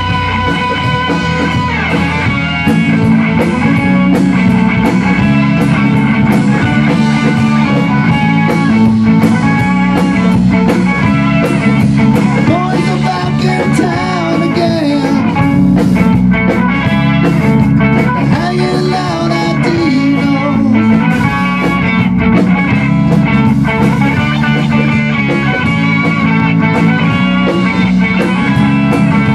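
Rock band playing live: electric guitar, bass guitar and a drum kit, with a man singing at times.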